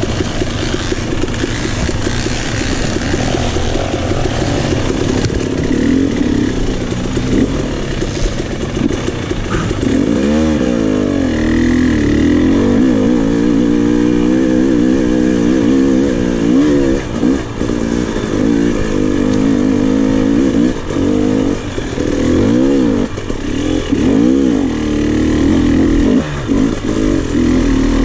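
KTM 300 XC's single-cylinder two-stroke engine revving up and down as the throttle is worked. It runs fairly steady at first, then from about a third of the way in its pitch rises and falls again and again in quick throttle blips.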